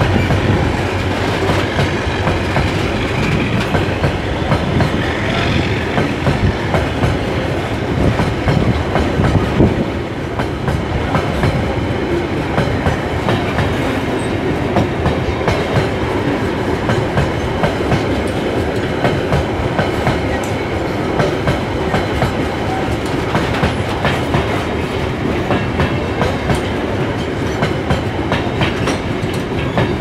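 Loaded open coal wagons of a freight train rolling past, a steady rolling noise with the wheels clicking over the rail joints throughout.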